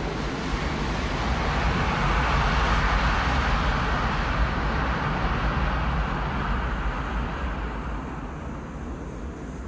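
Jet airliner passing low overhead: a broad rushing engine noise that swells to its loudest about three seconds in, then slowly fades away.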